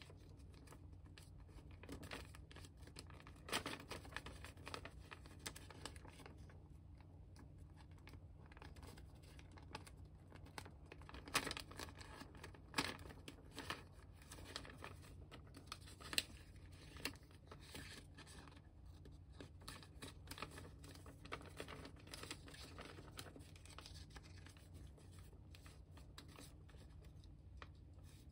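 A large sheet of origami paper being folded and creased by hand: soft rustling broken by irregular sharp crackles of the paper, a few louder ones near the middle, over a low steady hum.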